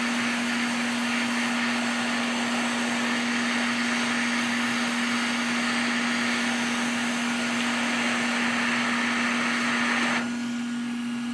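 Steady whir of a small electric motor with rushing air and a constant hum under it; the air rush drops about ten seconds in.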